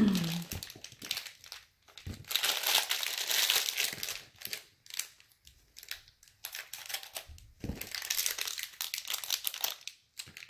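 Plastic toy packaging crinkling and rustling in irregular bursts as it is handled, with a couple of dull knocks.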